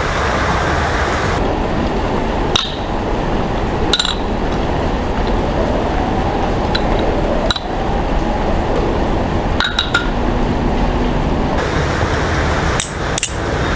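Balisong (butterfly knife) being flipped, heard slowed down: a handful of sharp metallic clinks, some in quick pairs, as the handles swing round and strike the blade and each other. A steady background hiss runs underneath.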